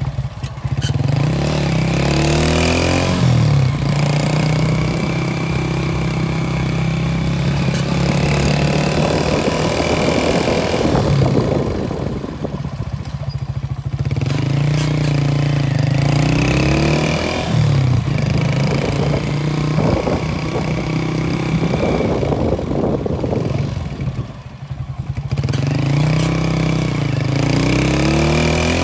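Motorcycle engine running while being ridden, its pitch climbing as it accelerates and falling as the throttle is eased off. It quietens twice, in the middle and again later, then revs back up each time.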